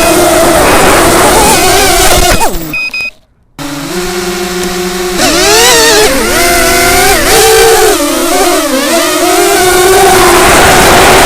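Small FPV drone's 1105 4000kv brushless motors whining, the pitch rising and falling with the throttle. About two and a half seconds in the throttle is cut: the whine drops away to near silence for about a second, then the motors spin back up, holding steady at first and then wavering with quick throttle changes.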